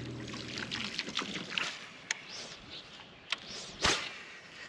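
A fishing rod cast from a bass boat: a swish through the air with a sharp snap about four seconds in, after a run of light clicks and taps.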